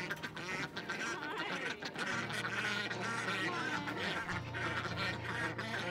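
Background music with sustained low notes, with ducks quacking over it.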